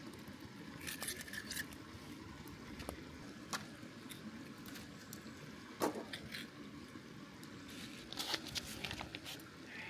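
Hands and a knife working on a raw fish: scattered scrapes, wet squishy handling noises and light clicks, with one sharper knock about six seconds in.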